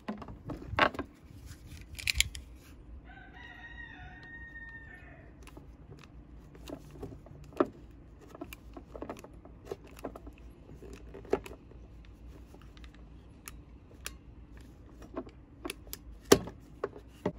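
Scattered clicks and taps of a utility knife and rubber fuel hose being handled and cut to length. A rooster crows once, for about a second and a half, around the third to fifth second.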